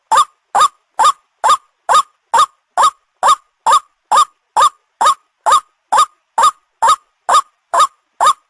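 White-breasted waterhen (ruak-ruak) call, a short rising-and-falling note repeated steadily about twice a second, each note alike, played as a hunting lure call.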